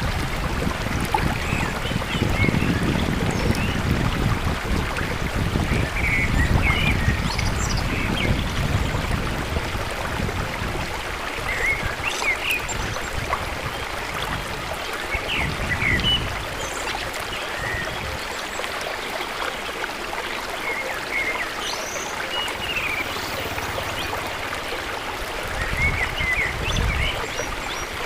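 Steady rush of a flowing stream, with short bird chirps scattered throughout and low rumbles that come and go.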